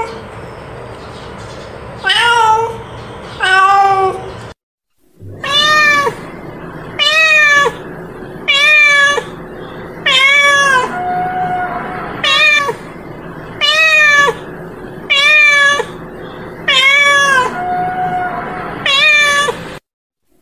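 Domestic female cat meowing over and over: about a dozen loud calls, each about half a second long and rising then falling in pitch, roughly one every one and a half seconds, with a short break about four and a half seconds in. It is a female cat's mating call.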